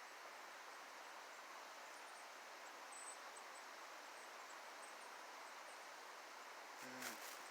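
Faint, steady rushing of a river flowing in the background, with a few tiny high chirps about three seconds in.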